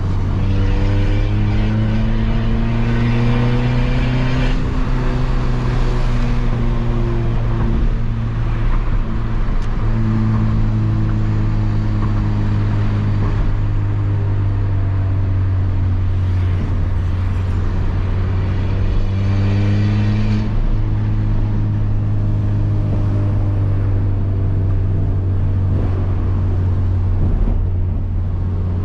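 Straight-piped Peugeot 206 1.4 four-cylinder engine under way in city traffic, with a constant deep exhaust drone. The revs climb and then drop several times as it is run up through the gears.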